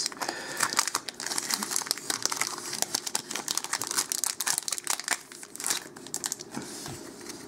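A Magic: The Gathering booster pack's foil wrapper being torn open and crinkled in the hands as the cards are pulled out. It makes a dense crackle that thins out after about six seconds.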